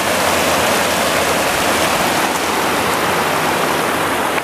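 Glacier-fed mountain stream rushing over boulders: a steady, full rush of whitewater.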